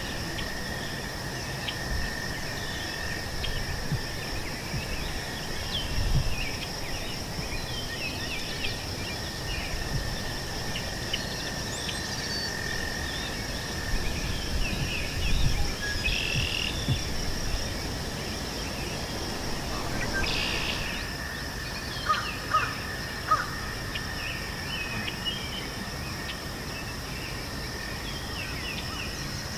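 Meadow ambience: insects trilling steadily at two high pitches, with scattered small bird chirps over them. About three quarters of the way in, a few short, louder bird calls stand out.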